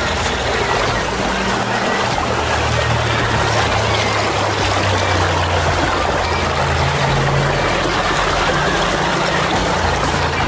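Steady rush of river water, with the low notes of background music stepping underneath.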